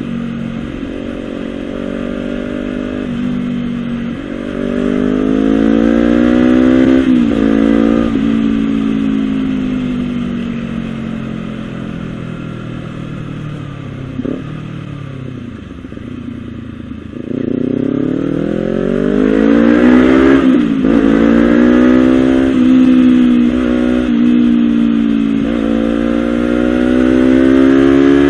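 Honda CBR250RR's two-cylinder engine running through a Villan SV1 slip-on racing exhaust, the revs climbing, dropping sharply twice, and easing off slowly in between.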